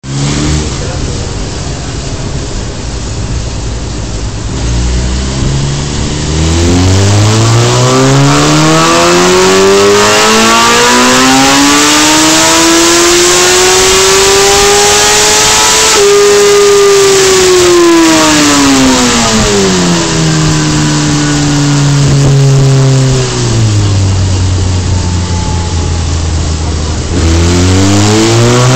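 Suzuki GSX-R inline-four sportbike engine doing a pull on a chassis dyno: after a few seconds at low revs, the revs climb smoothly and steadily for about ten seconds, then wind back down, hold briefly, drop lower, and a second climb starts near the end.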